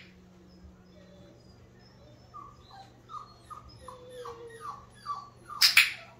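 Flat-coated retriever puppy whimpering: a string of short, high calls that fall in pitch, starting about two seconds in. Near the end comes one loud, sharp click of a training clicker, the marker that a treat is coming.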